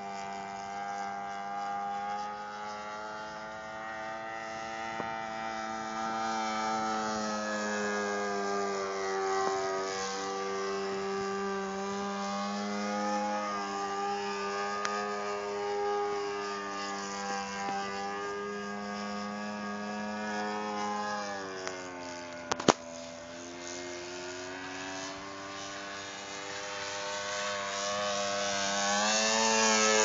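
Saito 82 four-stroke glow engine on a radio-controlled model Super Decathlon, turning a 13x6 propeller in flight. Its steady drone sags and climbs in pitch as the plane manoeuvres, and grows louder and higher near the end as it comes closer. There is a single sharp click about three quarters of the way through.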